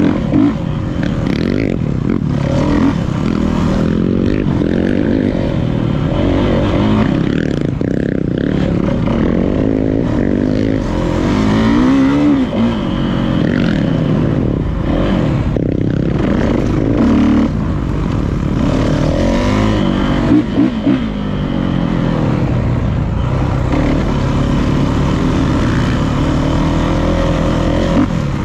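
Dirt bike engine revving up and down over and over, its pitch rising and falling every couple of seconds as the throttle is worked.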